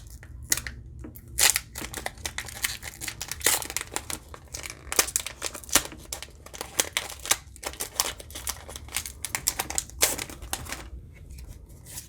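Foil wrapper of a Pokémon trading card booster pack crinkling and being torn open by hand, a dense run of sharp crackles that thins out near the end.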